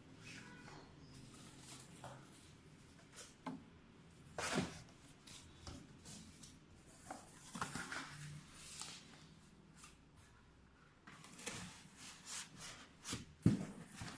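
Scattered rustles, rubs and light knocks of a motorcycle helmet and its packaging being handled during unboxing. There is a sharper knock about four and a half seconds in and a run of louder knocks near the end.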